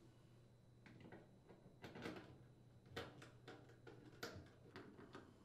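Faint, irregular clicks and taps, roughly one a second, of a screwdriver and screws being worked in the screw holes of a dryer's plastic door frame.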